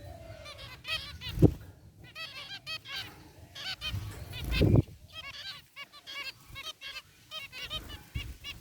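Several zebra finches giving short, repeated calls that overlap one another. Two dull low thumps come about a second and a half in and again just before the five-second mark.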